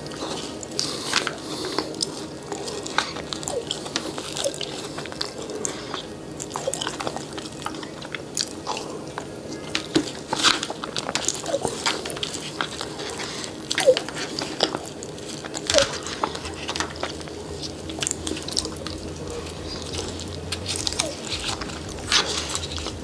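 Close-up eating sounds: chewing and crunching spoonfuls of a still-frozen caramel apple cheesecake cup, with icy bits crackling between the teeth. Irregular short clicks and crunches come a few times a second.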